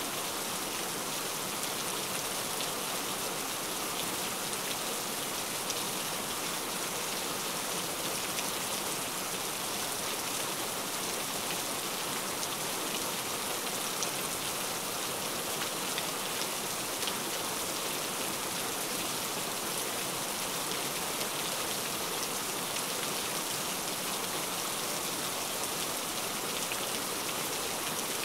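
Heavy rain falling steadily, a dense even hiss of drops with occasional sharper individual drop hits.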